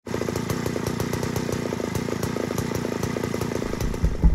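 Homelite two-stroke chainsaw engine running steadily, with rapid, even firing pulses. Near the end, heavier low thumps come in.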